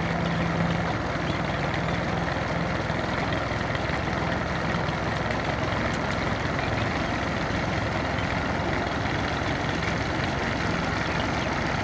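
Tractor's diesel engine idling steadily, the clutch still held down before its shaft drive to a borewell pump is engaged.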